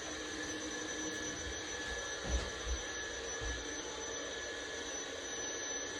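Steady hum and hiss, like a fan or ventilation running, with a few soft low thumps about halfway through.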